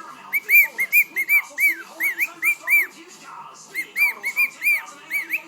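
Cockatiel whistling its song: a quick run of short, arching whistled notes, a brief pause about three seconds in, then another run of the same notes.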